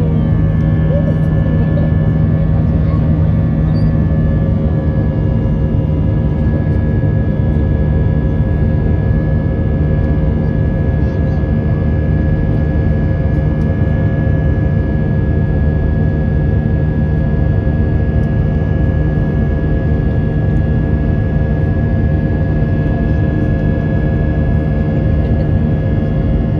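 Jet airliner engines at climb power after takeoff, heard inside the cabin as a steady loud rumble with a few steady humming tones.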